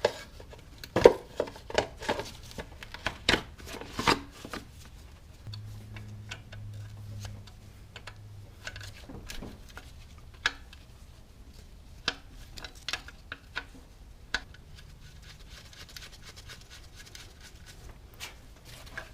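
Metal hand tools clinking and knocking on engine parts, in irregular sharp clicks, with the loudest knock about a second in.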